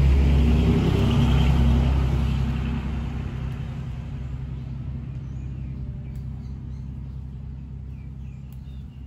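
A motor vehicle's engine with a low rumble, loud for about two seconds and then fading steadily as it draws away.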